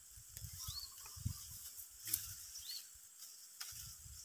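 Faint rustling and light snapping clicks of dry hill-rice stalks as the rice heads are reaped by hand with a linggaman finger knife, over a steady hiss. A bird gives a short rising-and-falling chirp twice, about two seconds apart.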